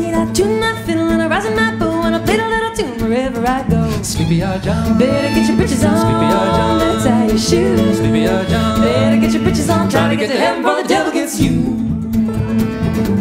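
Live folk string band playing a song: a woman singing over strummed acoustic guitar, fiddles, cello and upright bass, with a deeper bass part coming in about four seconds in.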